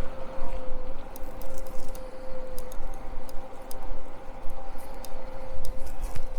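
Riding noise from a moving bicycle: wind buffeting the microphone, a steady hum and scattered light ticks and rattles from the bike.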